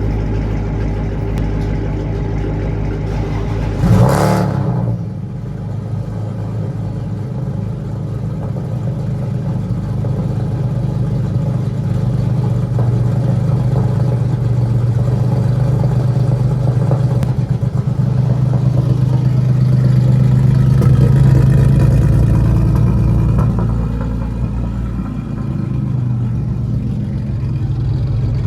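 Car engine running continuously, with a short loud burst about four seconds in. The engine note then grows louder through the middle and eases off again near the end.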